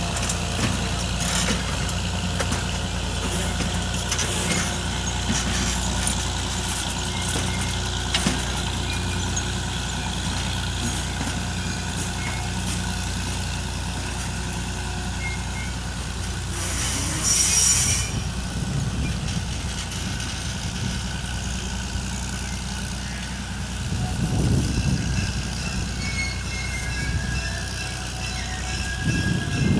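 Small passenger train pulling slowly away, its locomotive running with a steady low rumble. A short, loud hiss comes a little past halfway.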